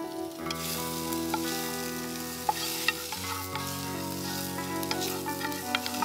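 Food sizzling in a metal frying pan while a spatula stirs it, with sharp clicks and scrapes of the spatula against the pan; the sizzle rises about half a second in. Soft sustained background music plays underneath.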